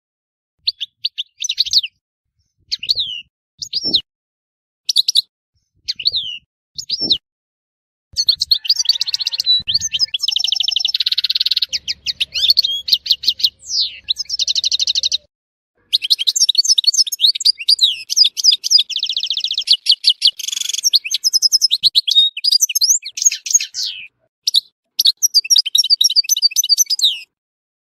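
European goldfinch singing. First come single short, falling high calls about once a second, then from about eight seconds in a long, fast song of twittering trills and buzzy notes, with brief breaks.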